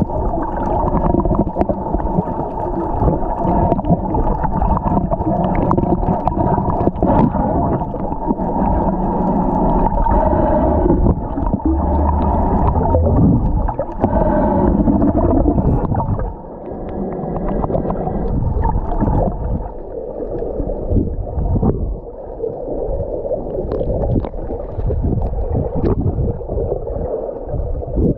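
Muffled underwater water noise: a loud, dense churning rumble with no sound above the low and middle range, dropping about sixteen seconds in and becoming choppier, with scattered clicks, after that.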